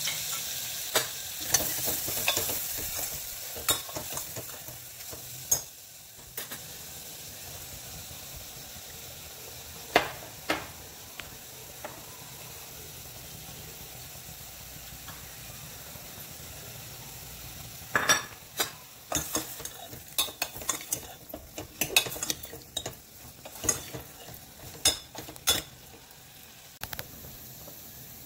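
Vegetables sizzling in hot oil in a pressure cooker while a spoon stirs them, clicking and scraping against the metal pot. The clicks come in a spell over the first few seconds, once near the middle, and in a busier spell in the last third.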